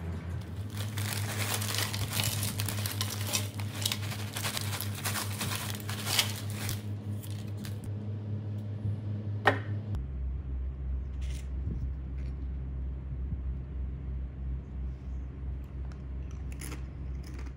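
Tortilla chips rustling and crinkling as they tumble into a wooden bowl for about seven seconds, then a single sharp knock. A low, held music drone sits underneath and changes pitch once, partway through.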